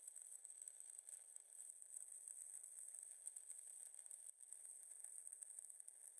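Faint, steady crackling hiss of a stick-welding arc burning a 1/8-inch 6013 electrode.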